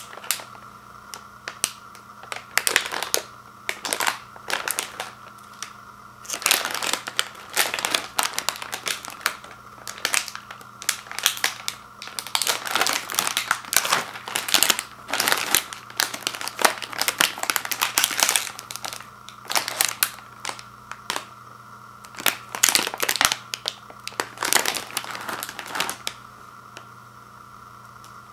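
Plastic wrapper of a sealed family-size cookie package crinkling in irregular bursts as hands grip it and turn it over. The crinkling stops a couple of seconds before the end.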